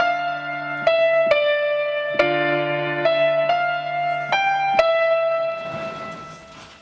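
Piano chords played on a digital keyboard, about eight struck one after another in a slow pattern, each ringing on until the next. The last chord fades out over the final two seconds.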